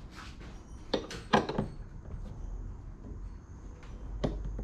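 A spanner clinking and knocking against the fuel line connector as it is loosened: three sharp clicks close together about a second in, and two more near the end.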